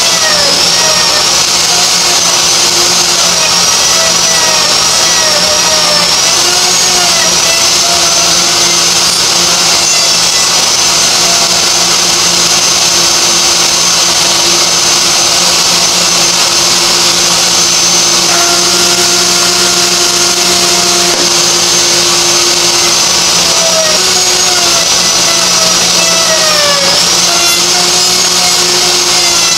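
A router running on a router table together with a Keen dust collector, a loud steady motor noise. The router's whine dips in pitch and recovers several times, as happens when the bit takes load in the wood.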